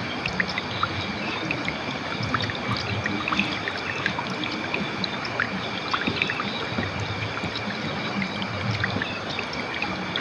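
River water flowing steadily, with many small splashes and gurgles through it.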